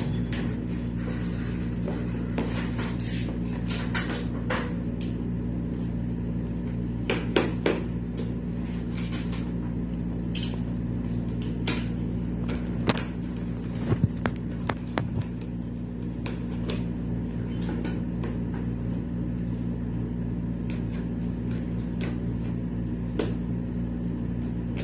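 Scattered light knocks and clicks, several in quick clusters, over a steady low hum.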